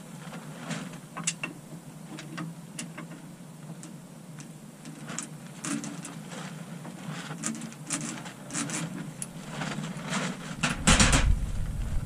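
Small metal clicks and scrapes of hand tools working at the gland of a backhoe boom hydraulic cylinder, scattered and irregular, then a loud noisy burst near the end.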